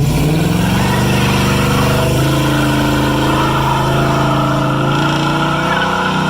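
Car engine running at high revs, its pitch climbing over the first couple of seconds and then holding steady.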